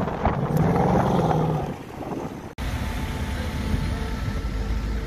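Ford Mustang GT's 5.0-litre V8 pulling away, its exhaust note fading over about two seconds. After a sudden cut, another Mustang idles with a steady low rumble.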